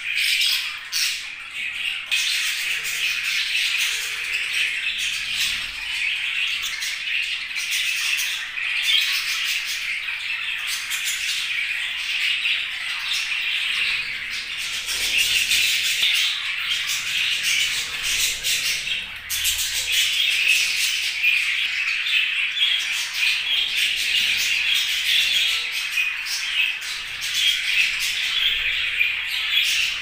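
Several budgerigars chattering and squawking together in an unbroken warbling chorus.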